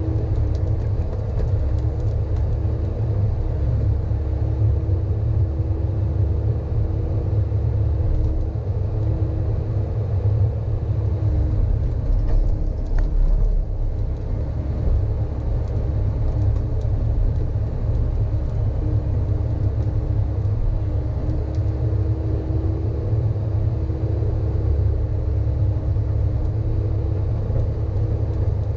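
Sany hydraulic excavator's diesel engine running steadily, heard from inside the operator's cab as the boom and bucket dig. A steady low hum rides over the engine and drops away for several seconds midway.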